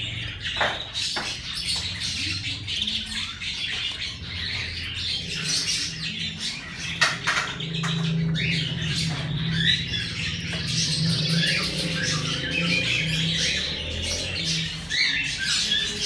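Blue-fronted Amazon parrot squawking and chattering in a run of repeated short calls and clicks, with a low steady hum partway through.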